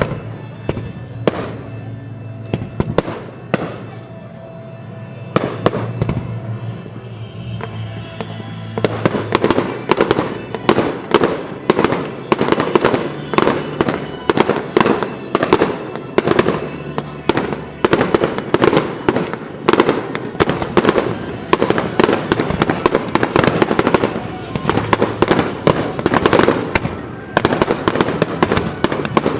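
Aerial fireworks bursting over a music soundtrack: scattered bangs at first, then a rapid, continuous barrage of bursts from about nine seconds in.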